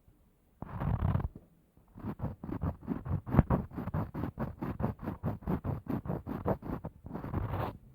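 A short rustling swish, then a quick, even run of small scratchy taps at about six a second, then another swish near the end.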